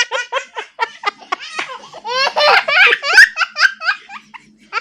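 Toddler laughing hard in rapid, high-pitched bursts, loudest about two to three seconds in and trailing off near the end.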